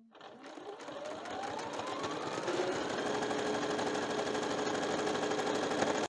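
Brother electric sewing machine stitching a seam through layered cotton fabric, speeding up over the first two or three seconds with a rising whine, then running steadily at a fast even stitch.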